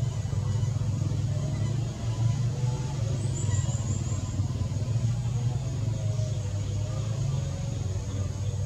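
Steady low engine hum, with a brief high-pitched trill about three seconds in.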